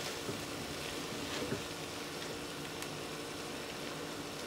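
Blended vegetable paste sizzling softly in a nonstick karahi as its water cooks off, stirred with a silicone spatula that makes a few soft strokes, over a steady low hum.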